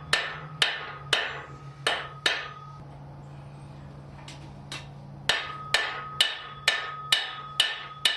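Hammer blows on an anvil, drawing out and flattening the end of a 3/8-inch mild steel rod, about two blows a second with a short ring after each. The blows stop for about two seconds near the middle, resume with two light taps, then run on steadily, over a steady low hum.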